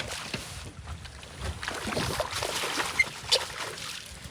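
Water splashing, with scattered knocks and clicks in a small boat, as a hooked trout is brought to the boat.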